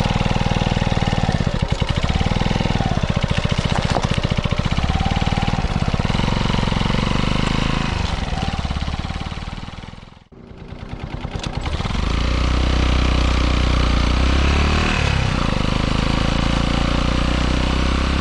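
Kawasaki Eliminator 125's single-cylinder four-stroke engine running under way, picked up by a microphone just behind the muffler outlet: a steady exhaust beat with quick even pulses. The sound drops away sharply about ten seconds in, then builds back to a steady run.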